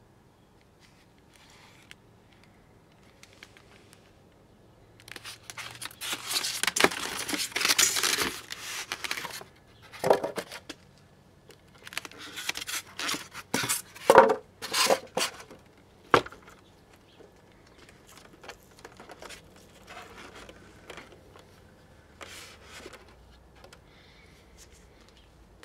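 A small portable tape recorder and its styrofoam packing being handled: two stretches of rubbing and scraping noise, about five and twelve seconds in. A few sharp clicks come as the plastic case is handled and its lid opened, then fainter scattered knocks.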